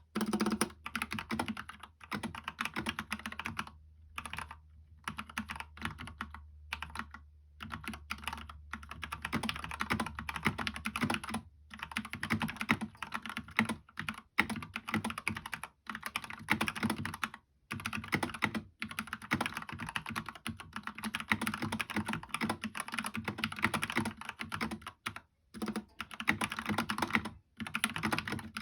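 Mechanical keyboard with lubed Gateron Yellow linear switches on an aluminium plate in a plastic GK64 case, typed on continuously in a steady stream of keystrokes with a few brief pauses.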